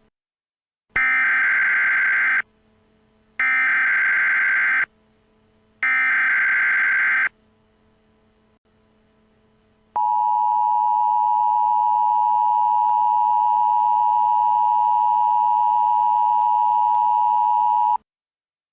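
Emergency Alert System tones: three identical SAME header data bursts, each about a second and a half long and evenly spaced. After a pause of a couple of seconds comes the steady two-tone EAS attention signal, held for about eight seconds before cutting off.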